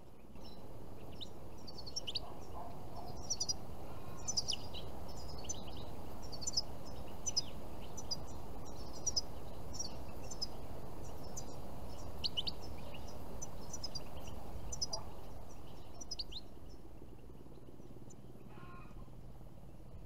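European goldfinches twittering: a quick, irregular run of short, high chirps and trills over a steady low background rumble. The chirping stops a few seconds before the end.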